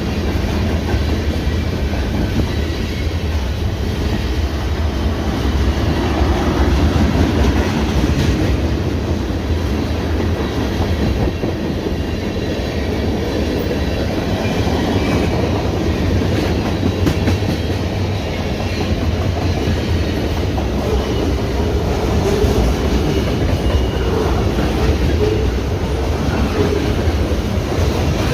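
CN manifest freight train's cars rolling past on the rails: a steady, continuous rumble of wheels on track.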